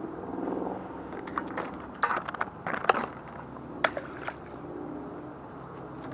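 Sharp knocks and clatters of hands working at an ice-fishing hole, loudest in a cluster about two to three seconds in and once more near four seconds, over a steady low hum.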